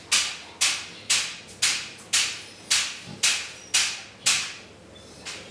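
A dog scratching its back by rubbing or scraping it against something, in a run of strokes about two a second, each starting sharply and fading, with a short pause near the end.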